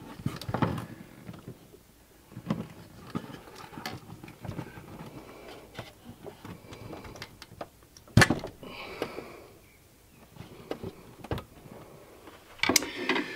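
Hands working an RV antenna power-inserter wall plate loose from the ceiling: scattered small plastic clicks and knocks and the rustle of coax and power wires being pulled through, with one sharp click about eight seconds in.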